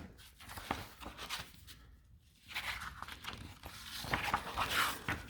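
Rustling and crinkling of packaging with scattered light clicks and knocks as the contents of a boxed leak-tester kit are handled, busier in the second half.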